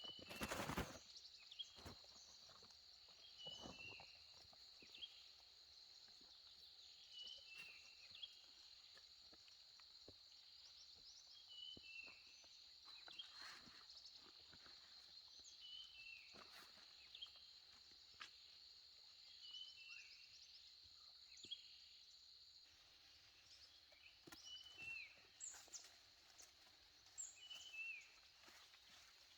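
Faint rural ambience: a steady high insect drone that stops about three quarters of the way through, with a short falling bird call repeated about every two seconds. Scattered soft knocks, and a few higher chirps near the end.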